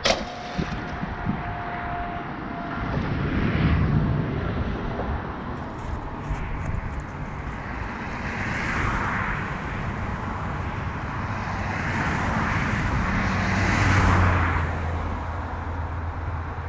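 A crawfish trap splashes into the water right at the start. Then road traffic passes several times, each vehicle swelling and fading, the loudest near the end with a deep hum, over steady outdoor noise.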